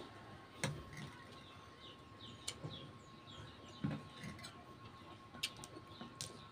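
Small birds chirping in short, repeated calls, with a few sharp clinks of a metal fork and spoon against a ceramic plate.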